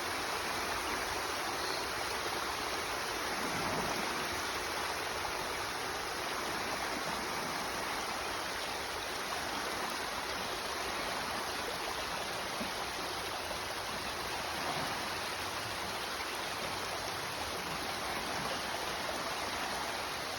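Water rushing steadily down a small waterfall, an even, unbroken rush of noise.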